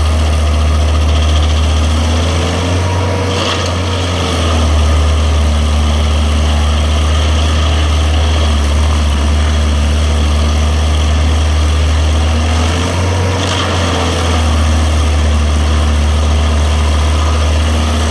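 Engine-driven grinder running steadily with a deep hum. Its pitch shifts briefly twice, about three seconds in and again about thirteen seconds in.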